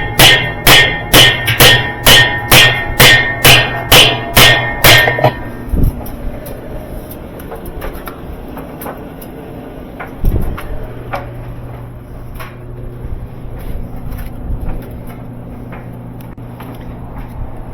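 Steady hammering on metal, about two ringing blows a second, stopping about five seconds in. Quieter scattered clanks and knocks follow, and a low steady hum comes in about ten seconds in.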